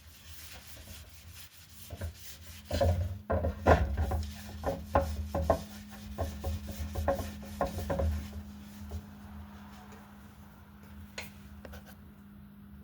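Rubbing strokes of oil being worked into the surface of a sanded camphor wood bowl, about two strokes a second for several seconds, then fainter. A steady low hum runs underneath from about two seconds in.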